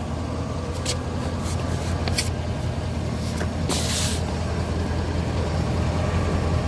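Engine idling steadily with a low, even hum, with a few light clicks and a short hiss about four seconds in.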